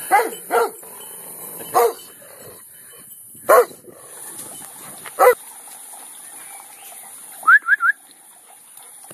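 Large, angry dog barking: five single, short barks spaced one to two seconds apart. Near the end come three quick, high, rising chirps.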